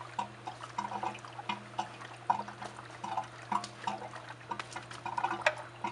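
Water dripping and trickling from the opened pool pump housing in short, irregular drips, over a steady low hum; a sharp click about five and a half seconds in.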